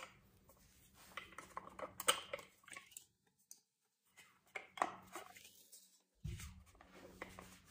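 Light clicks and small metal clatter of an angle-grinder wheel guard being handled and lined up on the grinder head, a few scattered knocks rather than a steady sound.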